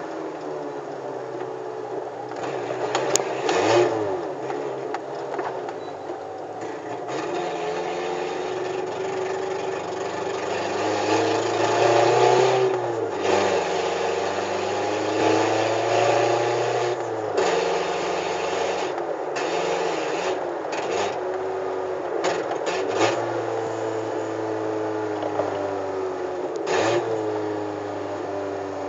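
VW Gol G4 engine running through a straight-through exhaust with the lambda (oxygen) sensor removed, heard while driving: its pitch rises and falls over and over as it revs up and eases off, with a few short sharp sounds in between.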